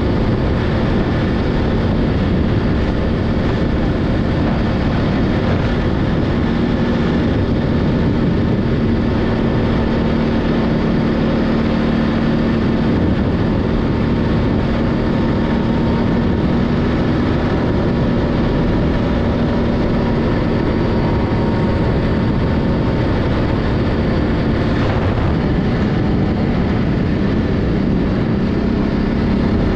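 ATV engine running steadily while riding, holding one even engine note.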